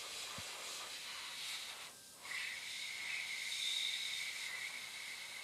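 Airbrush blowing air onto wet paint to push it around and thin it: a steady hiss that cuts out briefly about two seconds in, then resumes with a thin high whistle.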